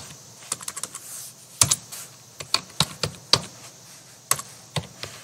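Typing on a computer keyboard: sharp key clicks in uneven runs, with short pauses between words.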